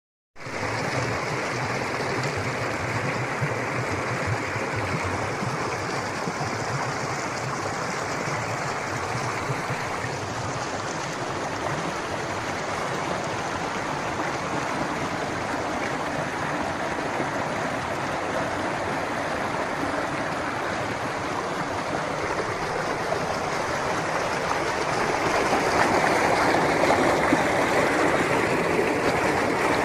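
Water flowing steadily over rocks, a constant rushing burble, growing a little louder in the last few seconds.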